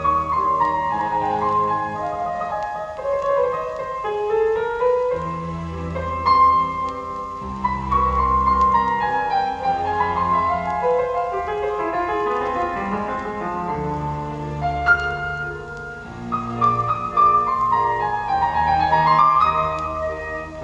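Piano music in a classical style: a flowing melody over low bass notes.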